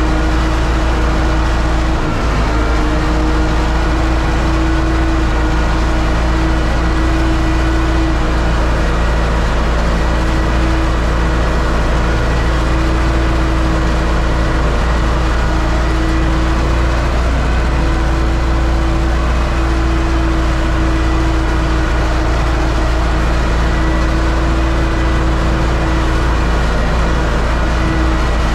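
U650 tractor's four-cylinder diesel engine running steadily under load as it pulls a disc harrow, heard from inside the cab, with a steady whining tone over the engine note.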